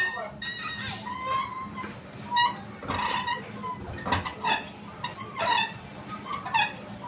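Wooden ship's steering wheel squeaking on its post as it is spun round by hand: short squeaks coming every fraction of a second, with a few knocks among them.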